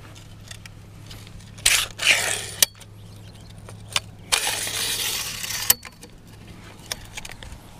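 Fishing tackle being handled at the bank: scattered clicks and clinks, with a short noisy scrape about two seconds in and a longer one of over a second starting around four and a half seconds in.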